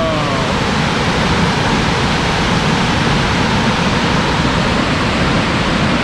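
Steady rushing of Big Falls, a large waterfall on the Falling Water River.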